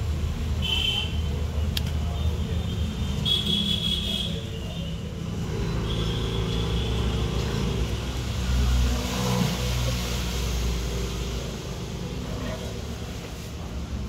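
Steady low mechanical rumble, like a motor or engine running, with a few short high-pitched sounds over it.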